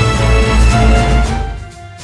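Background music with heavy bass and a beat; about one and a half seconds in, the bass drops away and the music goes quieter and thinner.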